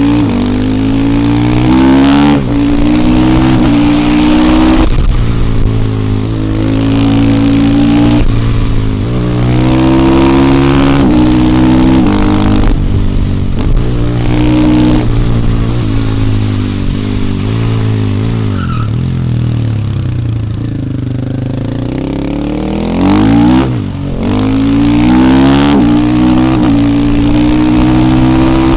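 KTM 450 EXC supermoto's single-cylinder four-stroke engine under hard acceleration. The pitch climbs and drops back again and again as it shifts up through the gears. In the middle it eases off into a long falling deceleration, then pulls hard again.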